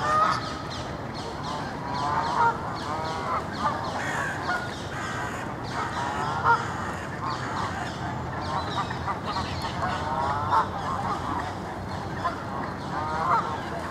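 A brood of ducklings peeping, many short high chirps overlapping without pause.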